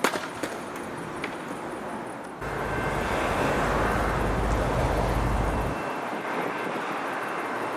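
A train approaching through a station, a steady rushing noise. It turns suddenly louder about two and a half seconds in, with a deep rumble for the next few seconds.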